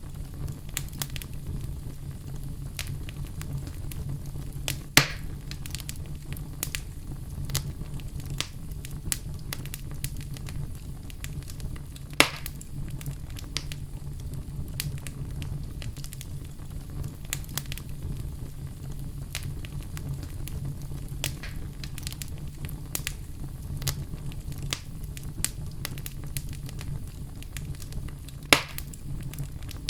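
Wood fire crackling in a fireplace: a steady low rumble of flame with constant small crackles and three louder sharp pops, about five seconds in, about twelve seconds in and near the end.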